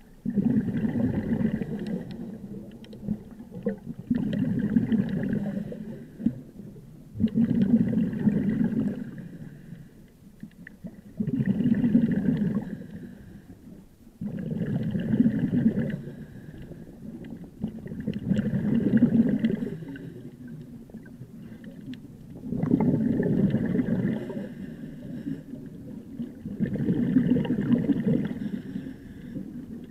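Scuba diving underwater: a diver's breathing through a regulator, with a rumbling, gurgling rush of exhaled bubbles about every four seconds and quieter stretches between breaths.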